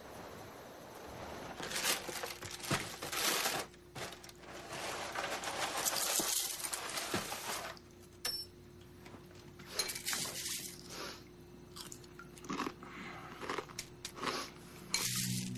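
Crunchy food being chewed from a bowl eaten with a spoon: loud, irregular bursts of crunching, over a faint steady hum.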